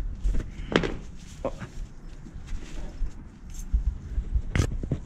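Rustling and shuffling with a few sharp knocks and crinkles over a low rumble of handling noise, as a person climbs into a small ultralight two-person tent and lies down in it.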